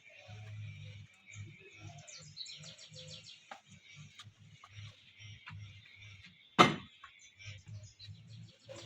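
Small birds chirping, with a low stuttering rumble underneath and one sharp knock about two-thirds of the way through.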